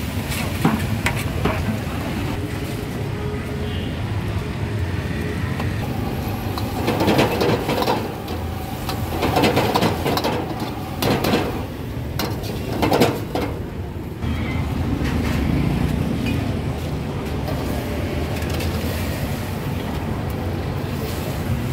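Roadside street ambience: steady traffic rumble from passing vehicles, with a few louder passes and some clatter between about 7 and 13 seconds in.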